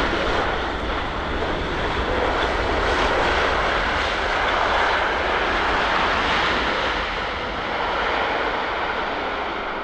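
Jet engine noise of a landing Boeing 787-9 Dreamliner: a steady rushing sound that grows louder around the middle and eases near the end.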